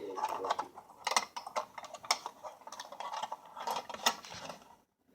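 Irregular clicking and rattling of small metal toy-locomotive parts being handled and fitted together, stopping abruptly near the end.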